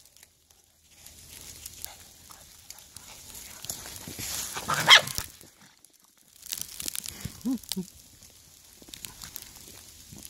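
Dogs playing in snow: scuffling noise, a brief loud rushing noise about halfway through, then a dog gives two short low barks in quick succession.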